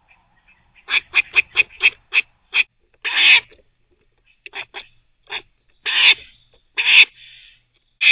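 Gray squirrel barking: a fast run of about eight short, sharp barks starting about a second in, then longer, harsher barks with a few short ones between.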